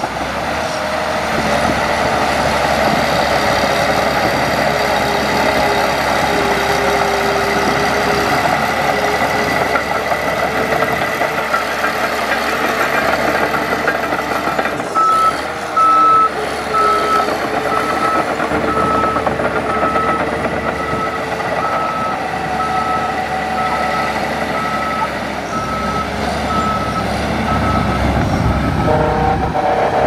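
Heavy construction machine's diesel engine running steadily, with a reversing alarm beeping in short, evenly spaced beeps, a little more than one a second, from about halfway through.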